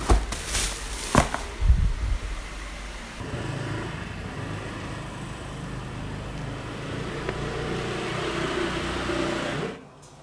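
A few sharp knocks, then a motorcycle engine running and slowly growing louder, as if the bike is pulling away; the sound stops abruptly near the end.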